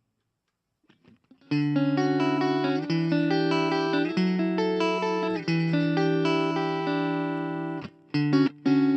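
Electric guitar played clean through a Blackstar Fly 3 mini amp. After about a second and a half of silence come ringing chords, each held for a second or so. Near the end the playing turns to short, choppy chords.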